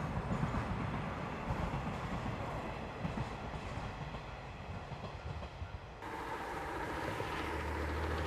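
A train passing on the rails, its wheels clattering and the sound fading as it moves away. About six seconds in, the sound changes abruptly to a steady low rumble from a smoking steam locomotive coming toward the microphone.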